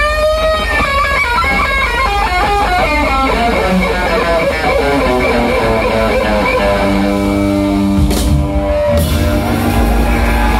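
Electric guitar solo over a live band: quick runs of single notes, then a few notes held and sustained near the middle, over a steady bass line.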